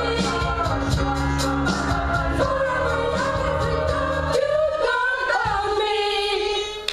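Female gospel choir with lead singers singing the closing bars of a song over accompaniment with a steady beat. About four seconds in, the accompaniment stops and the voices hold the final note alone.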